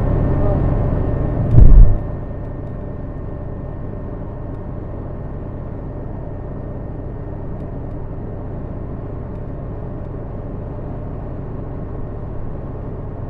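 Steady road and engine noise of a moving car, heard from inside the cabin. A single heavy, low thump comes a little under two seconds in. After it the noise drops suddenly to a quieter, even level.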